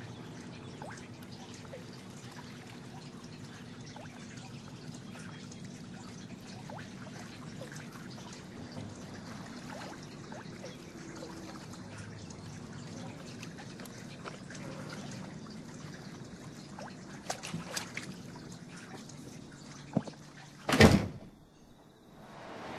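Bathwater dripping and trickling in a bathtub over a steady low hum, with a few faint clicks. Two loud short bursts come near the end.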